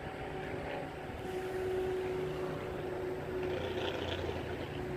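A steady distant engine drone with a low hum, a little louder from about a second in.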